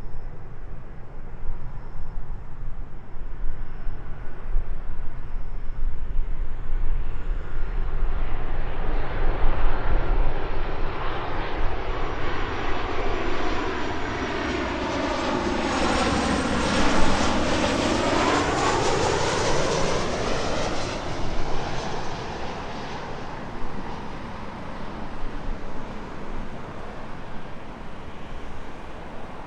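Jet airliner on landing approach passing low overhead: its engine noise builds, is loudest a little past halfway, then fades, with a high whine that drops in pitch as it goes by.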